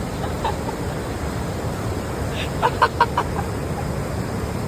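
A quick run of about five short clucking calls, like a hen's, a little over halfway through, over a steady rushing background noise.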